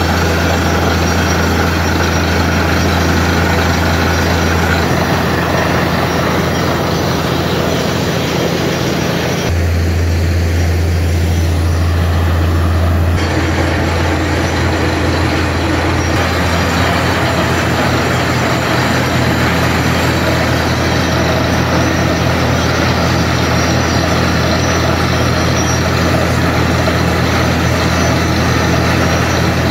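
Truck-mounted borewell drilling rig and its ELGi PG 1200S-330 diesel air compressor running steadily with a heavy drone, compressed air blasting dust and rock cuttings out of the bore as it drills. About ten seconds in the hiss drops away for a few seconds while the low drone swells, then returns.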